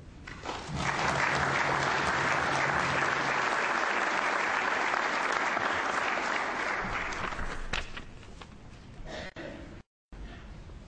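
Audience applauding. The clapping swells in under a second, stays steady and then dies away after about seven seconds, and the sound cuts out completely for a moment near the end.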